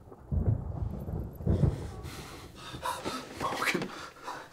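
A man breathing heavily in uneven, gasping breaths: deep and heavy at first, then sharper, with a breath that rises in pitch a little past the middle.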